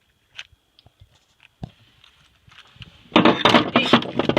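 Hard objects being handled and rummaged through: a few light taps, then about three seconds in a loud, dense clatter of knocks and rattles.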